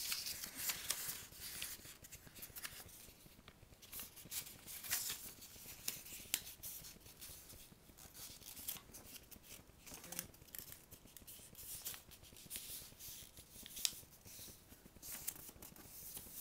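A sheet of paper being folded and creased by hand: faint intermittent crisp rustling and crackling as the folds are made and pressed flat.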